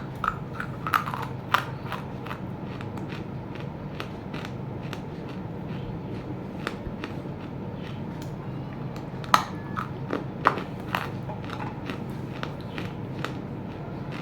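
Roasted clay chunks being bitten and chewed: a run of sharp crunches and crackles, loudest in clusters about a second in and again around nine to eleven seconds in, over a steady low background noise.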